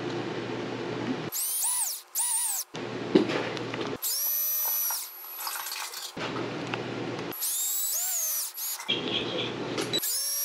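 Cordless drill driving screws into a plastic battery box lid, run in about four short bursts. Each burst's whine rises as the motor spins up and drops as it stops, with handling noise in between.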